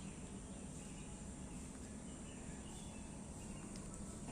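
Faint steady background noise with a low hum, and a few faint high chirps.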